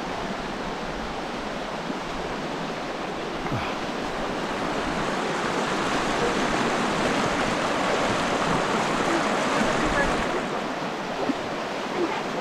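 Fast-flowing shallow creek rushing over rocks: a steady hiss of water that swells louder for a few seconds midway.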